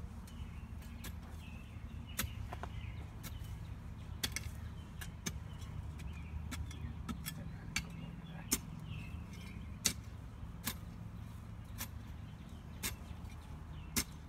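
Irregular sharp knocks and clicks of a digging tool striking soil and roots, over a steady low hum.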